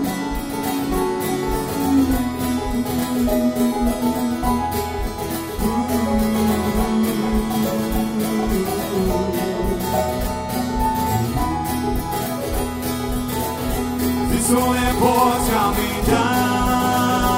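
Live acoustic folk band playing an instrumental break: banjo, a mandolin-type instrument and acoustic guitar picking and strumming together. Voices come in near the end.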